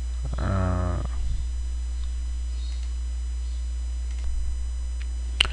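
Steady low electrical mains hum on the microphone. About half a second in, a man gives a brief hummed 'mm'. A single sharp click comes near the end.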